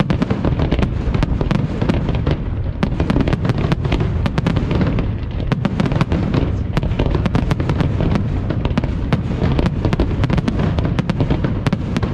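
Display fireworks at full intensity: aerial shells bursting in a dense, unbroken barrage, with many sharp bangs overlapping over a continuous low rumble.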